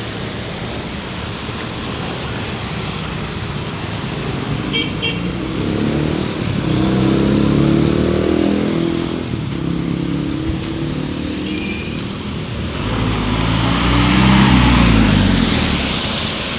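Street traffic on a rain-wet road: cars and motorcycles passing close by, with tyre hiss and engines rising and falling. Two louder vehicles go past, one about seven seconds in and another around fourteen seconds. A few short high beeps sound about five seconds in.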